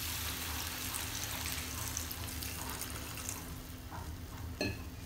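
Water poured into a hot pan of frying mushroom masala, hissing as it hits the pan, the hiss slowly easing off. A short knock near the end.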